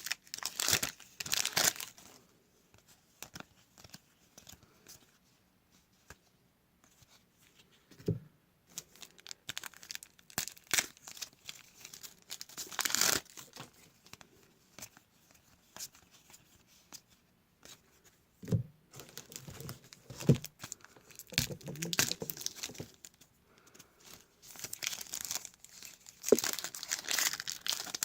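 Trading card pack wrappers being torn open and crinkled by hand, in irregular bursts with quieter gaps between.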